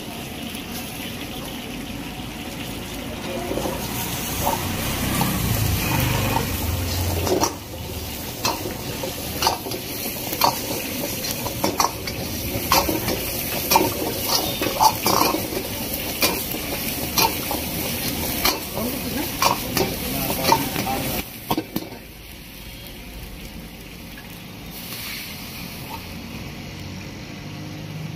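Steel ladle stirring and scraping vegetables frying in oil in a steel wok: a steady sizzle with many sharp clinks of the ladle against the wok. After about 21 seconds the sound drops and the sizzle softens, with liquid now in the wok.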